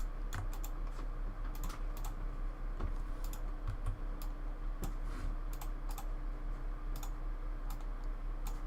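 Computer keyboard keystrokes: irregular sharp clicks, a few each second, over a steady low electrical hum.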